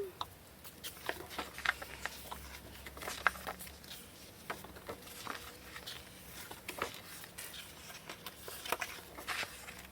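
Scattered light clicks and taps at irregular intervals as photo cards are handled and shuffled, over a faint low hum.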